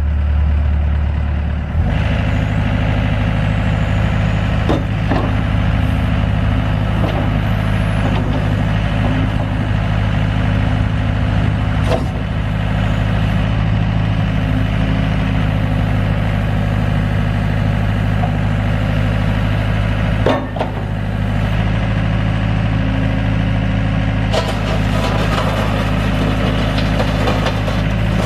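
Yanmar 3.3-litre four-cylinder diesel engine of a Case CX60C mini excavator running steadily, stepping up in pitch about two seconds in, with a few sharp knocks along the way.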